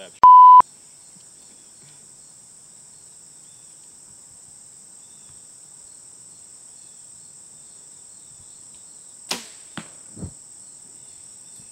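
A brief censor bleep tone right at the start, over a steady high-pitched chorus of crickets. About nine seconds in comes the sharp snap of a compound bow being shot, followed by two softer thuds.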